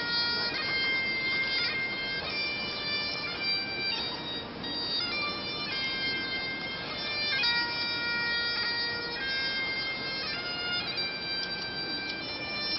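A solo Highland bagpipe playing a slow tune: long held notes that step up and down in pitch over the steady drone.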